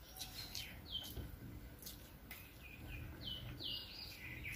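A small bird chirping faintly: a run of short chirps that fall in pitch, several close together in the second half. Soft clicks of fingers mixing rice on a plate sit underneath.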